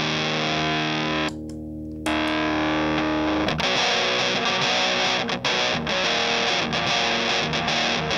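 Electric guitar played through a Soul Bender germanium-transistor fuzz pedal, giving a thick, heavily distorted fuzz tone. A held chord thins and drops in level for under a second about a second in, comes back, and new chords are played from about three and a half seconds in.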